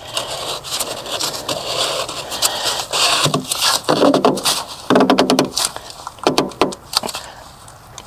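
Hand-fitted fuel filter being worked onto its housing: scraping, with a string of sharp clicks and knocks and a few short squeaks between about three and five and a half seconds in, as the filter is pushed and twisted into place.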